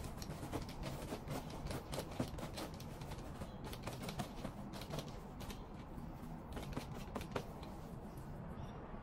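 Sticky lint roller rolled back and forth over a garment's fabric, its adhesive sheet crackling against the cloth in a rapid, irregular run of small clicks.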